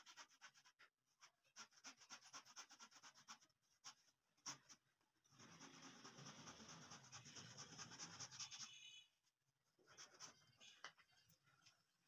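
Faint rasping of a hand saw cutting across a wooden molding strip in quick back-and-forth strokes. The longest, steadiest spell of sawing runs from about five seconds in and stops abruptly near nine seconds, followed by a few light scattered sounds.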